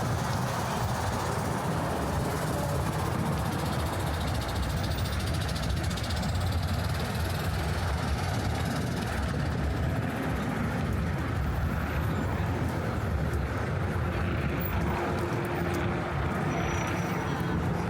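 City street traffic ambience: a steady rumble of passing vehicles.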